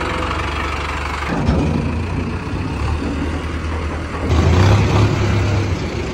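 Mahindra Arjun tractor's diesel engine running as the tractor is driven and manoeuvred, getting louder for a moment about four and a half seconds in.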